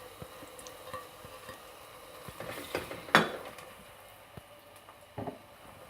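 Garlic-ginger paste frying in oil in a cooking pot with a faint sizzle, while a spoon stirs and knocks against the pot a few times. The loudest knock comes about three seconds in.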